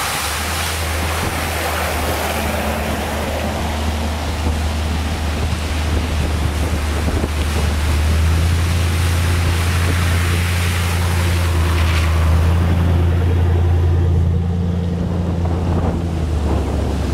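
Pickup trucks driving one after another through floodwater across a road: tyres swishing and throwing up spray, engines running, with wind rumbling on the microphone. The splashing is loudest at the start and again about two-thirds of the way through.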